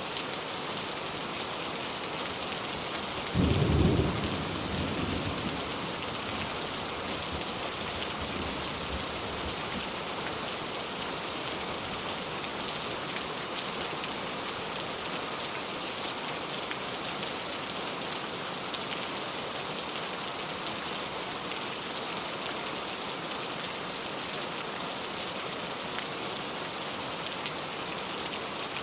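Steady pouring rain, with a sudden deep thunderclap about three seconds in that rumbles off over the next several seconds.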